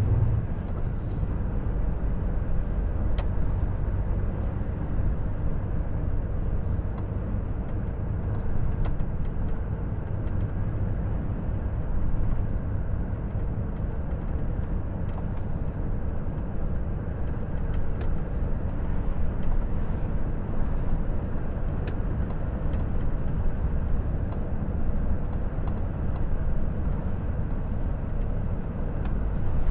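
Volvo FH 460 truck's straight-six diesel running at steady speed with tyre and road noise, a continuous low rumble with a few faint ticks scattered through.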